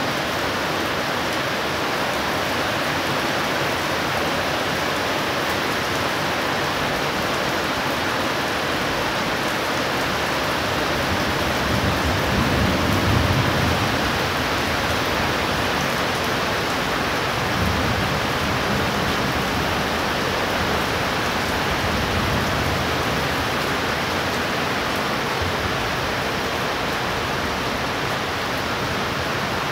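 Heavy rain pouring down steadily in a severe thunderstorm, with a few low rumbles swelling up in the middle.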